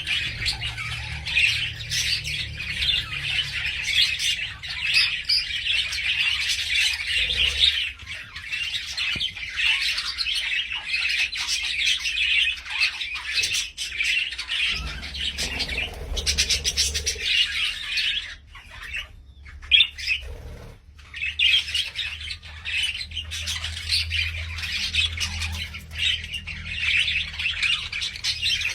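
Parrots chattering and squawking almost without pause, with a short lull about two-thirds of the way through.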